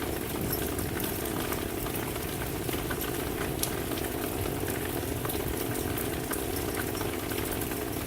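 Steady rain falling: an even hiss with many sharp, scattered ticks of single drops landing.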